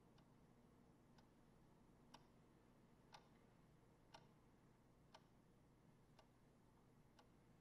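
Wall clock ticking faintly, one tick a second, in an otherwise near-silent room.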